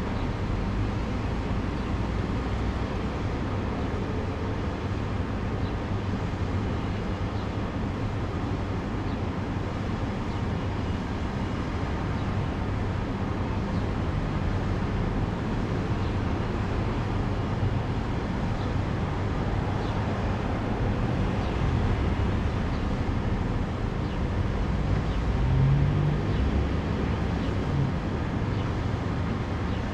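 Steady low rumble of street traffic. A louder low hum swells briefly a few seconds before the end.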